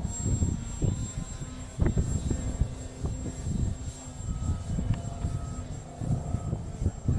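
3D Hobby Shop Extra 300 radio-controlled aerobatic model plane flying, its engine a faint steady drone, under heavy gusts of wind rumbling on the microphone.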